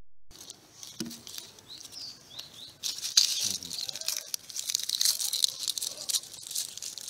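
Dry onion skins crackling and tearing as an onion is peeled by hand with a knife: a dense papery crinkling that starts about three seconds in. A few short bird chirps come before it.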